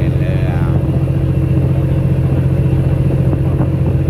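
A motor boat's engine running steadily under way: a constant low hum with no change in speed.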